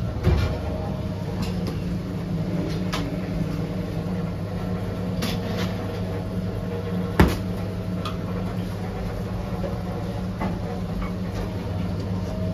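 Steady low hum of running bakery machinery, with a few scattered knocks and one sharp bang about seven seconds in.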